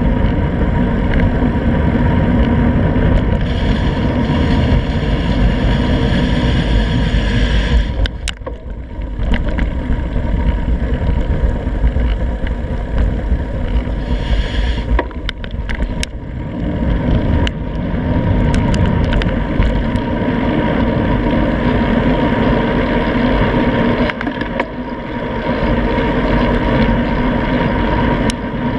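Wind rushing over a handlebar-mounted GoPro's microphone while riding a road bicycle, with steady road rumble from the tyres. It eases off briefly three times, and a few sharp clicks and knocks come through about eight seconds in and again around fifteen to eighteen seconds in.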